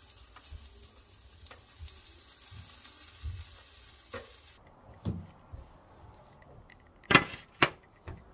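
Food sizzling in a frying pan, a steady hiss that cuts off abruptly about four and a half seconds in. Light clicks follow, then two sharp knocks close together near the end, the loudest sounds here.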